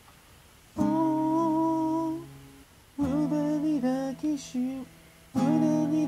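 Acoustic guitar strummed by hand, with a man's voice singing along in long held notes. There are three phrases, each opening on a strummed chord, with short quiet gaps between them.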